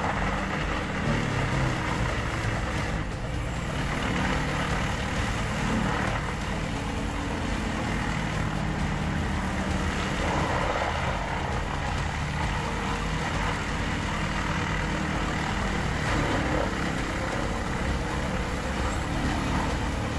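Large wood chipper, a Vermeer WC2500 XL with a 213-horsepower engine, running steadily at working speed.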